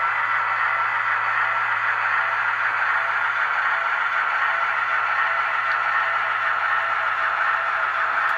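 Steady whirring hiss of Märklin HO-scale model trains running on the layout, with a low steady hum underneath.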